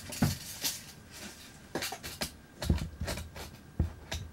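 Scattered small clicks, rustles and light knocks from hands handling a steel tape measure against an overhead cabinet.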